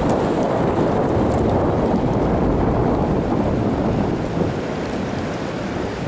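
Steady rushing of the Arkansas River running high over rocky pocket water, with wind buffeting the microphone.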